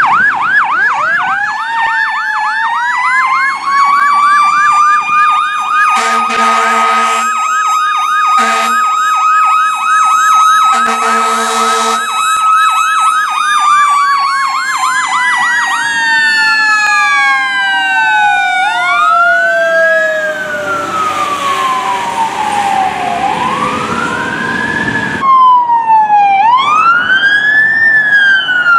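Fire engine responding under sirens: a fast yelp over a long wail that holds high and then slowly falls, broken by three short air horn blasts in the first half. Near the end another vehicle's siren wails up and down.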